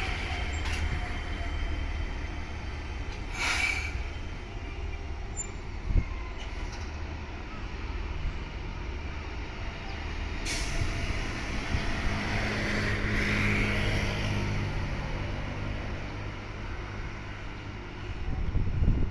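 Electric train on the Chikuhi Line at a level crossing, running with a low steady rumble, with short sharp hisses of air, typical of air brakes, about three and a half and ten and a half seconds in.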